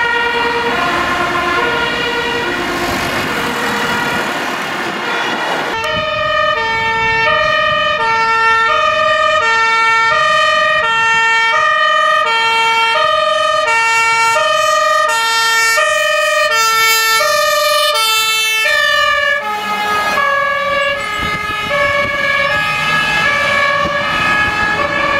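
Fire engines on an urgent run, their two-tone sirens alternating high and low about once every 0.6 s, with heavy truck engines passing close. About three-quarters of the way in, a second siren at different pitches takes over as another fire vehicle comes by.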